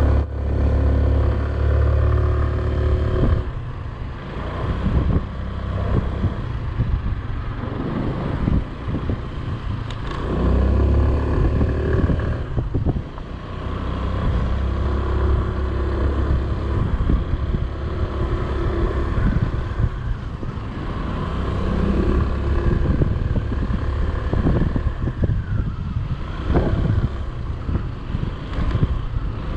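Motorbike engine running while riding along a road, its pitch rising and falling with the throttle, with wind noise on the microphone.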